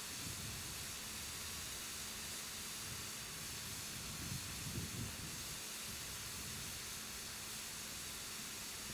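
Steady hiss, with brief low rumbles about half a second in and again around four to five seconds in.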